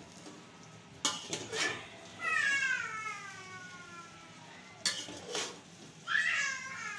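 Metal spoon scraping and knocking against a metal cooking pot as cooked biryani rice is stirred. A cat meows twice over it: a long call falling in pitch about two seconds in, and another near the end.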